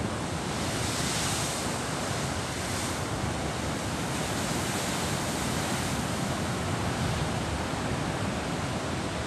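Pacific Ocean surf breaking on the rocks below a cliff, a steady wash of waves that swells louder for a couple of seconds about a second in. There is some wind on the microphone.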